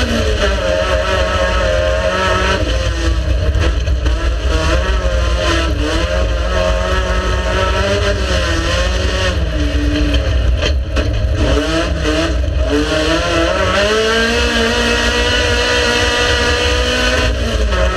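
Race car engine at full effort, revving up and down repeatedly, its pitch climbing and then dropping sharply at gear changes and throttle lifts.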